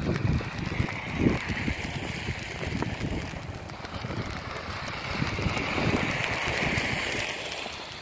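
Tyre hiss of vehicles driving past on a snow-covered road, swelling twice, with wind rumbling on the microphone.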